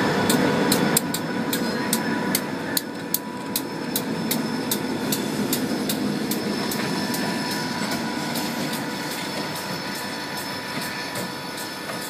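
Grade-crossing warning bell ringing steadily with rapid, evenly spaced strikes, over the low rumble of CSX diesel locomotives rolling past and pulling away, the rumble fading as they go.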